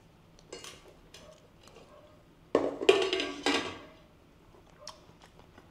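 Plates and cutlery clinking at a meal: a few light clicks, then a louder clatter lasting about a second a little before halfway, and a few small clicks near the end.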